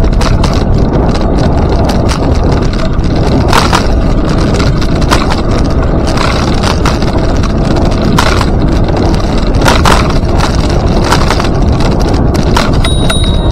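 Steady rolling rumble and wind noise from riding along a paved trail, with scattered knocks and rattles.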